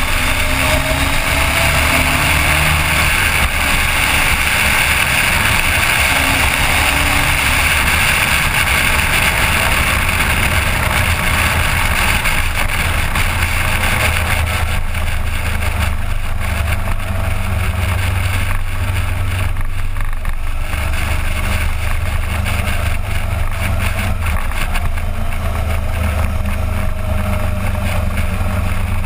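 Riding sound of a Suzuki GSX1400's inline-four engine, heard through heavy wind rumble on a GoPro microphone. The engine's pitch slowly rises and falls.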